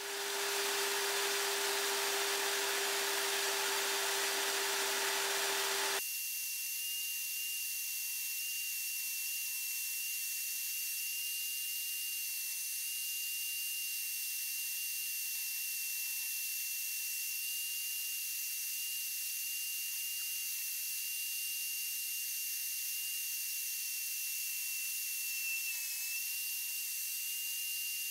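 Benchtop bandsaw running and cutting a quarter-inch wood template: a steady machine whine with blade hiss. About six seconds in the sound shifts abruptly from a lower hum to a thinner, higher whine.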